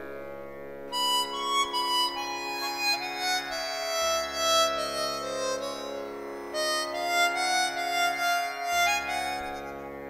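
Instrumental background music: a melody of short notes over a steady held drone, the drone shifting pitch twice.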